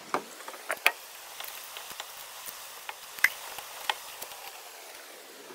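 Irregular sharp metal clicks and clinks of wheel bolts being threaded into a steel wheel and turned with a wrench, the loudest about a second in and again a little after three seconds.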